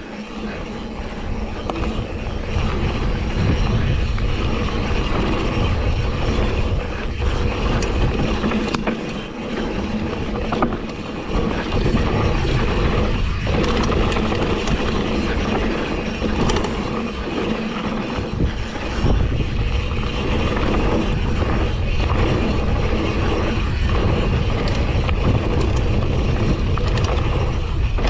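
Wind rushing over the microphone and tyres rolling over a dirt trail as a mountain bike rides downhill, with the bike rattling and knocking over bumps throughout.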